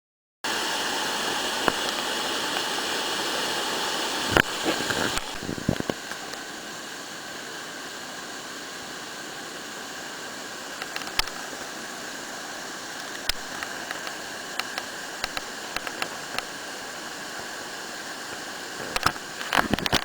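Steady rush of flowing mountain-river water, dropping in level about five seconds in, with scattered clicks and knocks over it.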